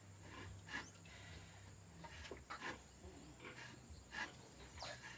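Faint short squeaks from a newborn piglet, about five spread over a few seconds, with cloth rubbing against it.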